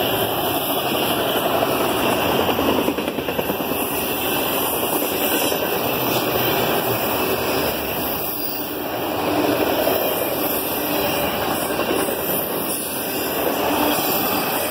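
Autorack freight cars rolling past close by: a steady noise of steel wheels on the rails.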